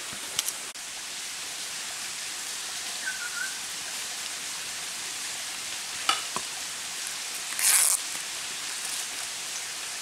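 Campfire with green bamboo tubes cooking in it, giving a steady sizzling hiss with a few scattered crackles and pops and a louder burst of hiss just before the end.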